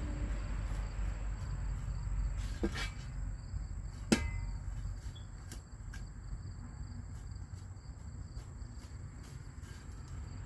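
Two sharp knocks about a second and a half apart, the second louder and briefly ringing, over a steady low rumble.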